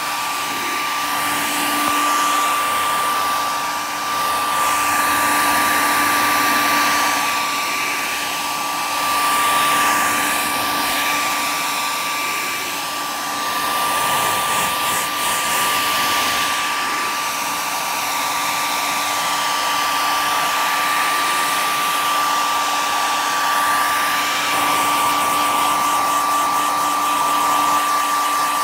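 Handheld hair dryer running steadily on a freshly painted surface, a constant whine over its blowing air, its level swelling and dipping slightly. It is drying the top coat of chalk paint to speed up a crackle finish.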